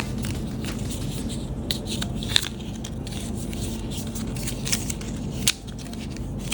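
Cardboard and paper packaging of an AirPods Pro box being handled and opened: scattered scrapes, rustles and light clicks over a steady low hum, with a sharper snap about five and a half seconds in.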